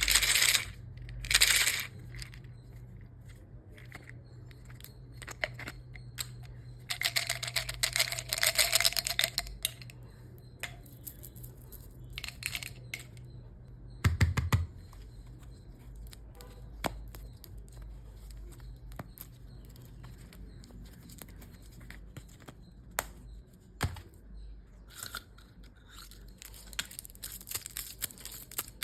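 Sweet and toy packaging being opened by hand: plastic wrappers crinkling and tearing in separate bursts, with small clicks and a dull thud about halfway through as pieces are set down.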